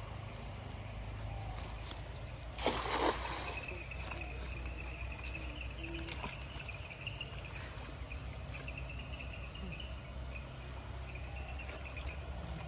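A cast net hits the pond water with a short splash about two and a half seconds in. Insects then keep up a high, steady trill in stretches.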